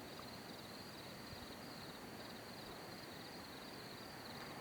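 Faint chorus of night insects: a high, steadily pulsing trill over a low hiss.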